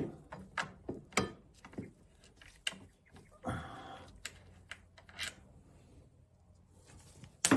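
Light clicks and knocks of hand tools and metal brake parts being handled, with a short scraping rub about three and a half seconds in and a sharper click at the end.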